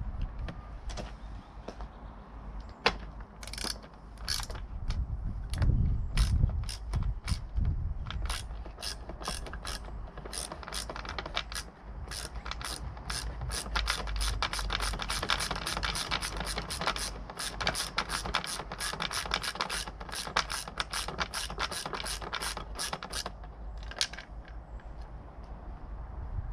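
Hand ratchet wrench clicking as bolts holding a motorcycle's rear grab rail are wound out: scattered clicks at first, then a long run of rapid clicking that stops a few seconds before the end.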